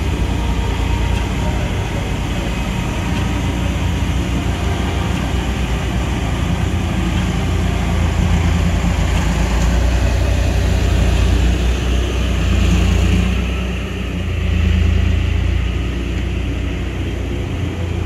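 A road tourist train, a locomotive-styled tractor unit towing passenger carriages, drives slowly past close by with a steady, deep engine rumble. The sound swells twice in the second half as the carriages roll past.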